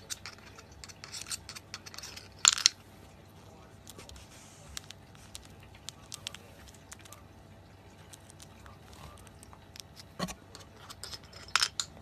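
A cockatiel handling a coin around a piggy bank: scattered light clicks and scratches, with a sharp clink about two and a half seconds in and two more near the end.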